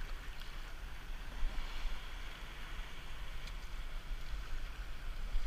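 Shallow sea surf rushing steadily over rocks, with a low rumble of wind against the microphone.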